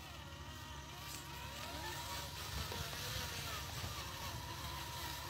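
RC model dump truck's motor and gearbox whirring steadily as it drives, with a thin steady whine and pitch that rises and falls with the throttle.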